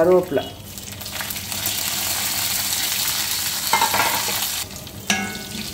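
Hot oil sizzling in a kadai as green chillies and curry leaves go into a tempering of mustard seeds, urad dal, fennel and garlic. The sizzle swells about a second in and dies down near the end.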